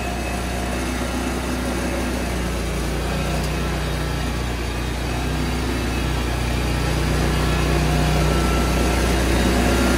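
Engine of a remote-control mowing tool carrier, started with the remote's lever, running steadily with an even low hum that grows slightly louder toward the end.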